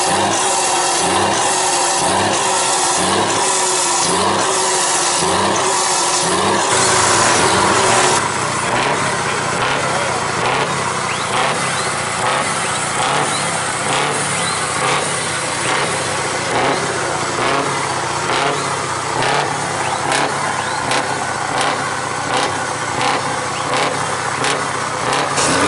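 Heavy truck diesel engines running through open, loud exhausts. For the first few seconds one engine is revved in a steady rhythm, about one and a half rises and falls a second. After a cut at about eight seconds another truck's engine runs with a rough, uneven rasping pulse.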